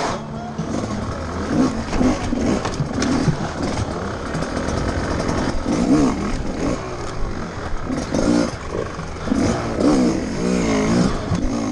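GasGas enduro motorcycle engine revving in repeated short throttle bursts, its pitch rising and falling as the bike is worked over log obstacles.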